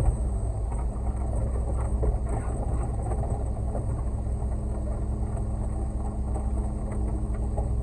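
Concrete mixer truck's engine running steadily while the drum turns and rattles hard, discharging the last of its load: the drum is nearly empty.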